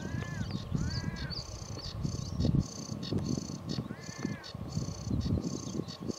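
Sedge warbler singing a continuous, fast, scratchy, chattering song. Three harsh arched calls from another bird come about a second apart early on and again past the fourth second, over a low gusting rumble of wind.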